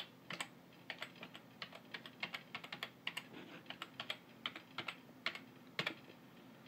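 Typing on a computer keyboard: a quick, uneven run of key clicks, several a second, as a password is entered.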